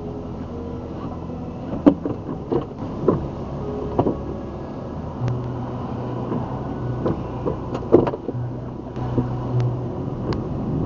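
Steady low rumble heard from a stationary dashcam, broken by scattered sharp knocks and taps. A car drives past on the road, with a low steady hum from about five seconds in until near the end.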